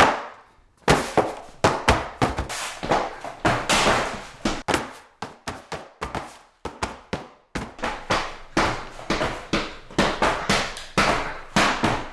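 A long run of hard, sharp blows, about two a second and slightly irregular, each with a short ringing tail, as something is repeatedly struck and smashed.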